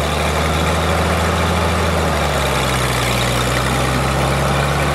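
McCormick 141 self-propelled combine's engine running steadily as the machine drives past, a constant low engine drone under a dense mechanical din.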